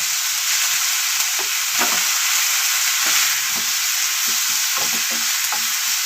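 Onions, green chillies and ginger-garlic paste sizzling in hot oil in a pan, with a spoon scraping through them in short irregular strokes as they are stirred. The paste is being fried until its raw smell is gone.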